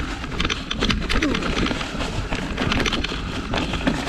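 Fat-tyred 29+ mountain bike clattering down rocky singletrack: a dense run of knocks and rattles from tyres, frame and chain hitting rocks, over a steady low rumble. The tyres are pumped too hard, so every rock comes through.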